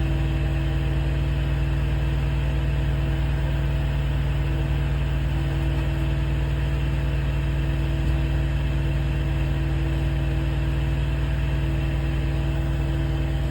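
Steady drone of a truck's APU generator engine running, together with an Eberspacher Airtronic D2 bunk heater's blower fan running on high.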